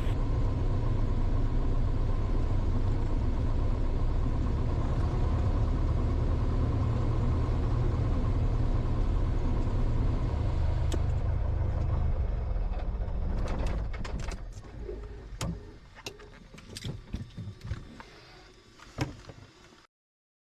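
Cessna 172's four-cylinder piston engine running steadily, heard from the cockpit, then dying away about 13 seconds in. Scattered clicks and knocks follow, until the sound cuts off near the end.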